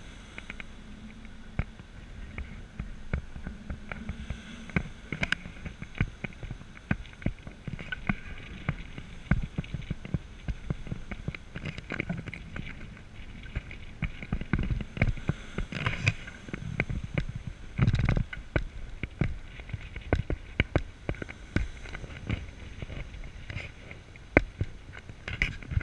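Strong sea wind buffeting a small action camera's microphone: a gusting rumble full of irregular crackles and knocks, with a faint steady whine underneath.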